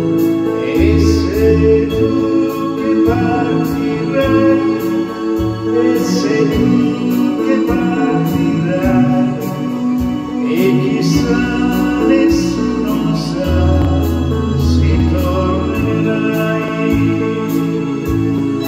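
A man singing an Italian song into a handheld microphone over backing music with steady held bass notes.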